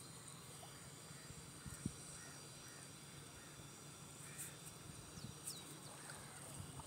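Faint low rumble of calm sea water and wind on the microphone, with faint bird calls over it: a scatter of short chirps, and a couple of quick falling high whistles about five seconds in.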